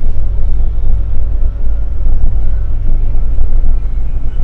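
Scania K360iB coach under way, heard from inside the front of the cabin: a steady, loud low rumble of engine and road noise.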